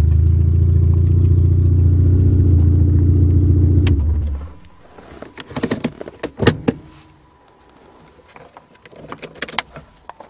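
Engine of an automatic Honda running at a steady pitch, then shut off about four seconds in. A scattering of light clicks and knocks follows.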